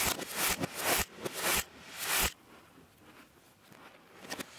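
Sig Sauer MPX CO2 pellet rifle firing about five quick shots, roughly two a second, with pellets striking aluminium soda cans. The last shot comes a little after two seconds in, and then it goes quieter.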